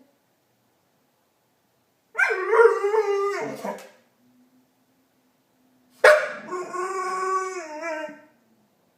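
Pit bull giving two drawn-out, warbling howl-like vocalizations, the 'Chewbacca' noise: one about two seconds in, and a louder one with a sharp start about six seconds in, each lasting about two seconds.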